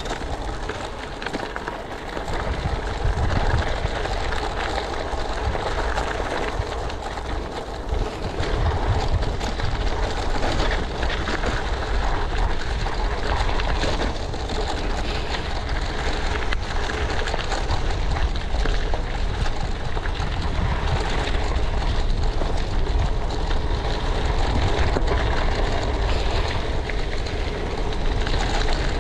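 A bicycle rolling along a gravel track: tyres crunching over the gravel and the bike rattling, under steady wind rumble on the handlebar camera's microphone.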